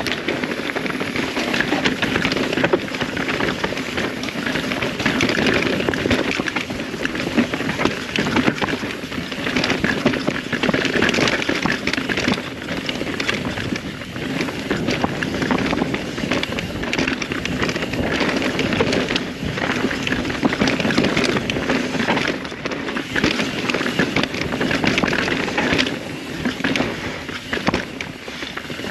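A full-suspension mountain bike, a Rocky Mountain Altitude, running fast down a dirt downhill trail. Its knobby tyres crackle and hiss over dirt and rocks without a break, under a dense stream of small rattles and knocks from the bike over the bumps.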